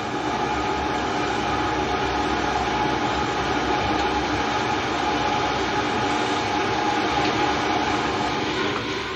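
Gas water heater's burner running: a steady rushing roar with a steady hum through it, easing slightly just at the end.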